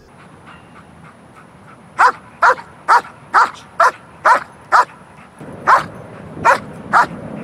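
A black German Shepherd barking repeatedly, about two barks a second, ten barks in all with a short pause partway through.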